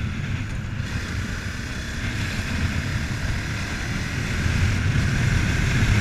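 Honda CBR250R's single-cylinder engine running steadily as the motorcycle rides along, with wind noise on the microphone.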